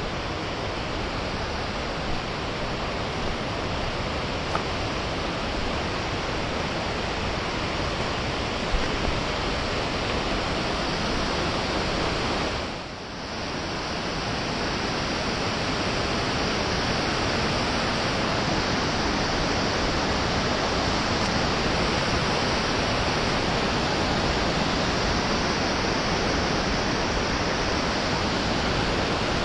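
Steady rush of a mountain torrent, water falling and running over rocks, with a short dip in level about thirteen seconds in and a few faint ticks.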